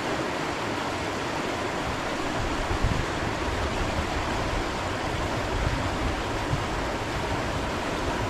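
Steady rush of flowing river water, with a brief low bump a little under three seconds in.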